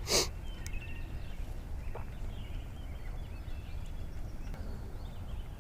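Faint birds calling in the distance, a few short chirps scattered through, over a low steady rumble.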